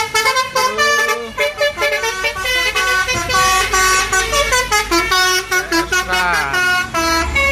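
Basuri 'telolet' musical horn on a CS Trans bus playing a fast tune of short stepped notes, with a few sliding notes near the end. The bus engine rumbles underneath.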